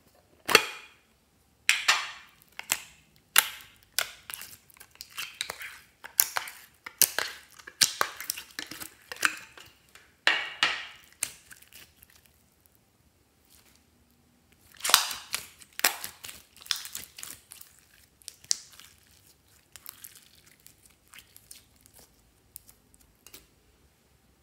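Red glitter slime squeezed and worked in the hands, making sticky, wet crackling and popping sounds in clusters with short pauses, fainter and sparser in the last third.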